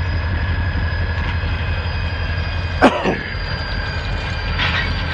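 A pair of Norfolk Southern diesel locomotives rumbling steadily as they move slowly through the yard, with a steady whine above the engine drone. About three seconds in there is one short, sharp, loud sound that quickly falls away.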